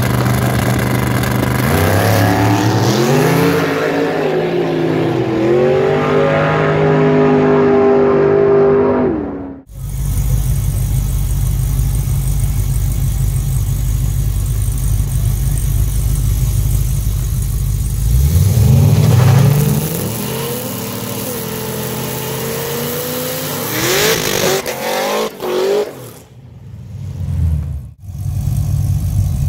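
Drag-racing car engines accelerating hard, the pitch climbing with brief dips at the gear changes. After a sudden cut about ten seconds in there is a steady low engine rumble, then another car accelerates away with its pitch rising. Near the end the sound is chopped by several abrupt cuts.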